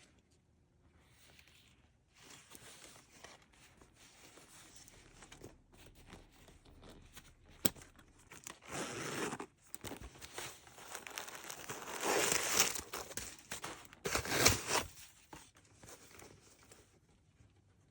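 Packaging being unwrapped by hand, crinkling, rustling and tearing, with louder bursts about halfway through and again about two-thirds of the way in.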